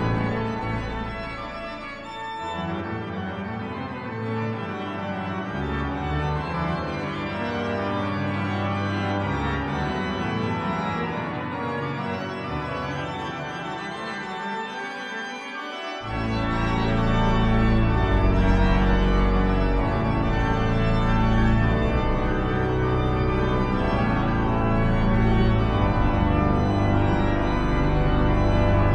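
Organ music played on a three-manual console with pedalboard, sustained chords throughout. A quieter passage gives way about halfway through to a strong deep bass line, and the music grows louder.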